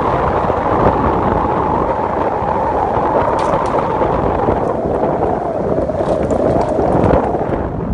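Steady rush of tyre and road noise from a car driving along a paved road, with wind buffeting the microphone.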